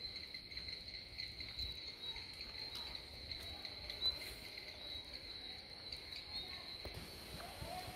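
Insects trilling in one steady, unbroken high-pitched chorus, with a single faint tap about four seconds in.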